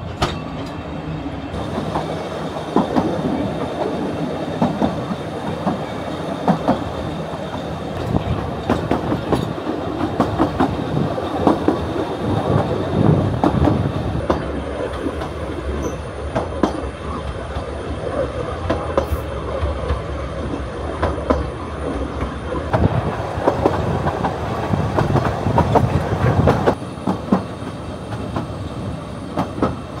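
Narrow-gauge railway carriage running along the line, its wheels clattering steadily over the rail joints; it gets quieter near the end.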